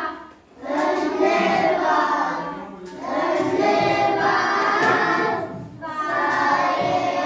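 A group of children singing together in unison, in long phrases with short breaks between them.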